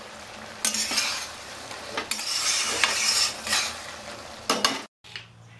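Spatula stirring a thick prawn and ridge gourd curry in a wok, wet scraping strokes against the pan with a faint sizzle; it stops abruptly near the end.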